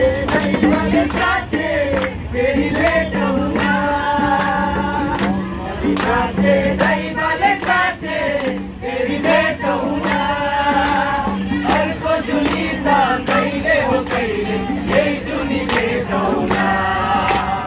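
A group of men and women singing together, with hands clapping a steady beat about twice a second.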